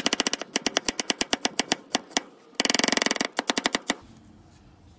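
Chef's knife rapidly slicing an onion thin on a wooden cutting board, the blade tapping the board about ten times a second. A brief pause comes about two seconds in, and the chopping stops about four seconds in.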